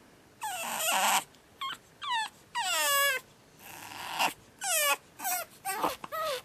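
Pug puppy screaming in its crate: a run of about eight high-pitched cries, most falling in pitch, the first harsh and noisy. It is the crying of a newly arrived puppy not yet settled into being crated at night.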